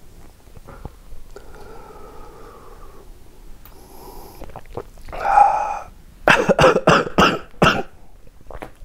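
A man groaning and then coughing hard, about five quick coughs in a row near the end, with a faint low moan earlier. He is reacting to a very salty challenge chip with a wasabi-like coating.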